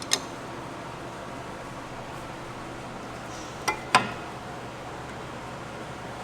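Sharp metallic clinks of brake parts and tools being handled: one just after the start, then two close together about four seconds in, the last and loudest with a brief ring, over a steady background hiss.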